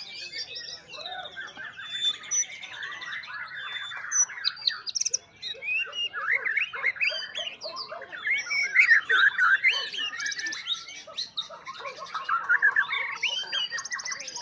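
White-rumped shama singing in full, a continuous run of varied whistles, glides and rapid trills, loudest around the middle.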